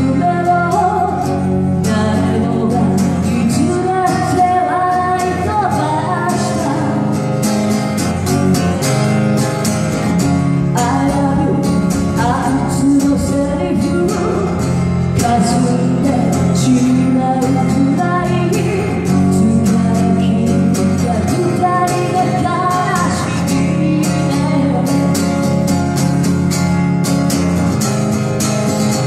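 A woman singing into a microphone while strumming a steel-string acoustic guitar, heard through a PA system.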